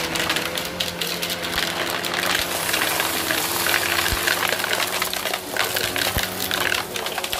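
Shark vacuum cleaner running, a steady motor hum under constant crackling and rattling as grit and debris are sucked in.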